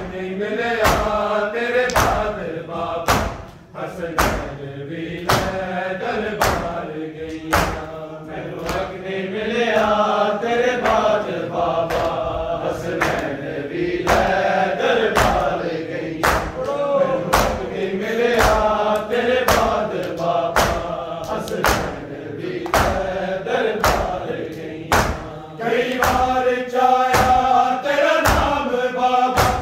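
Men chanting a Shia nauha lament together, with the loud, rhythmic hand slaps of matam (chest-beating) falling on the beat about once or twice a second. The slaps come closer together near the end.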